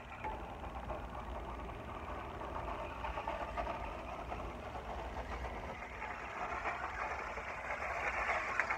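Electric motor of a toy RC car whirring as it drives, getting louder near the end, then stopping abruptly.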